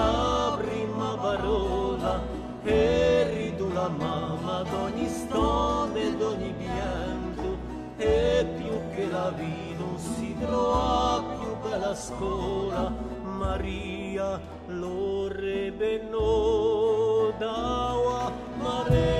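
Background music: a voice singing long held notes with a wide vibrato over a steady instrumental accompaniment.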